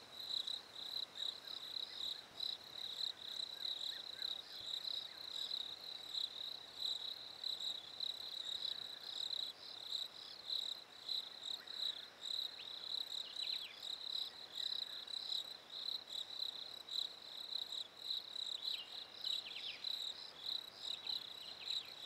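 Crickets chirping in a steady, evenly pulsed chorus, used as a night nature ambience.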